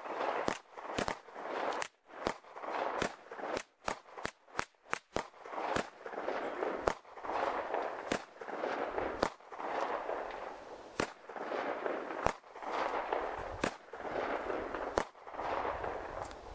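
Gunfire from several shooters firing at a moving radio-controlled truck: about two dozen sharp shots at uneven spacing, coming fastest a few seconds in. A hiss swells and fades between the shots.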